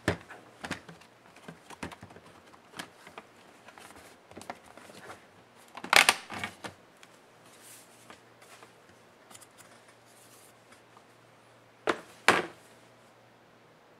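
Lenovo IdeaPad Flex 14IWL bottom cover being handled and pried off its snap clips: scattered clicks and snaps, the loudest cluster about six seconds in. Two sharp knocks come just before the end as the cover comes free.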